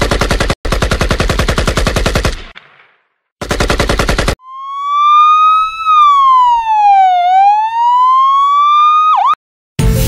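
Two bursts of rapid automatic gunfire, then a police siren wailing, its pitch rising, falling and rising again before it cuts off suddenly.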